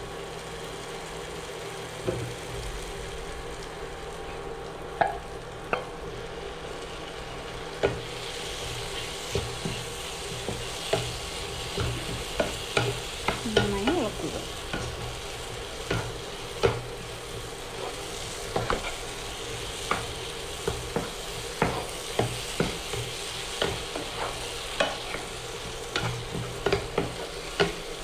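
Prawns stirred into a thick onion-tomato masala in a nonstick frying pan, with the spatula scraping and clicking against the pan over a steady sizzle. The sizzle grows louder about eight seconds in, as the prawns go into the hot pan.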